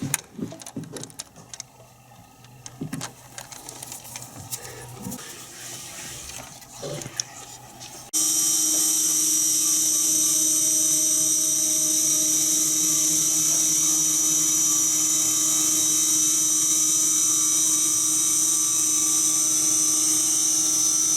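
Scattered light clicks and knocks, then about eight seconds in the steady high whine of a small CNC router's spindle motor starts abruptly and keeps running at constant speed to the end.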